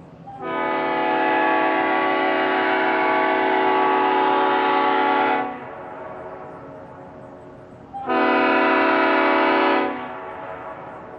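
Leslie RS5A five-chime air horn (a reproduction S5A fitted with RS spike-back heads) sounding its deep chord in two blasts: a long one of about five seconds, then after a pause a shorter one of about two seconds. Both blasts start and stop sharply.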